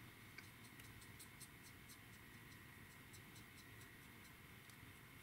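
Faint, irregular scratchy ticks of a stiff flat brush scrubbing paint off a photo-etched metal model seat to raise chips and scuffs, a few ticks a second, over a faint steady room hum.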